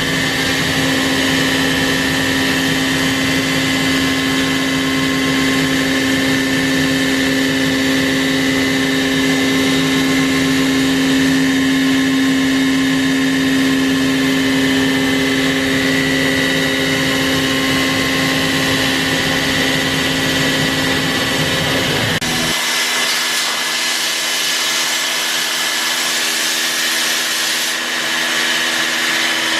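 CNC router running steadily, a loud whine with several steady tones over a noisy hiss. About 22 seconds in the sound changes abruptly: the low rumble drops out and a different steady tone takes over.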